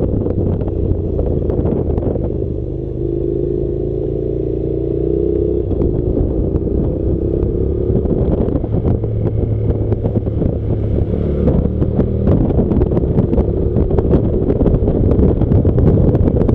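Honda NC700 motorcycle's parallel-twin engine running under way, its note climbing for a few seconds a little after the start, with wind buffeting the microphone throughout.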